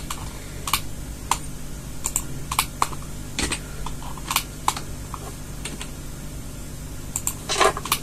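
Computer keyboard keys pressed singly at irregular intervals, about a dozen sharp clicks, over a steady low hum.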